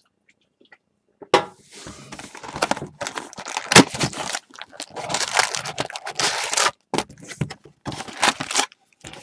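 A cardboard trading-card box torn open and its wrapped card packs crinkling as they are handled and pulled out, in irregular crackly bursts starting about a second in.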